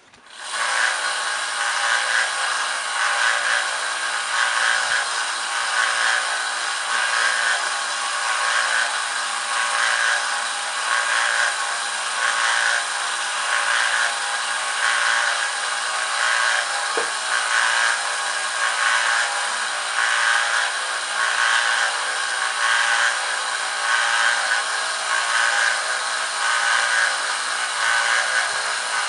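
Small belt grinder starting up about half a second in, then running with a longsword's edge held against its 800-grit belt, a steady grinding hiss that swells and eases with each pass of the blade as the edge is sharpened and polished.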